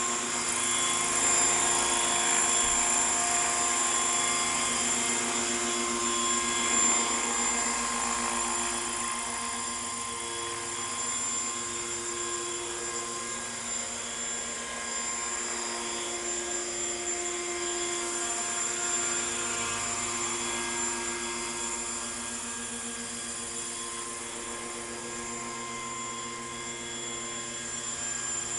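Radio-controlled Hurricane 550 model helicopter in an Agusta A109 scale fuselage, running steadily with a high whine from its rotor head and drivetrain. It is louder in the first several seconds, then eases off and rises and falls a little.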